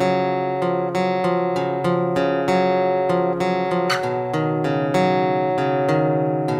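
Instrumental opening of a song on acoustic guitar: a steady pattern of picked notes ringing into one another.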